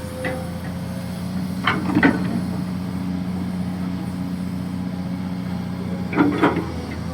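Kobelco SK200-6 Super hydraulic excavator's diesel engine running steadily while digging, with short clanks twice: about two seconds in and again near the end.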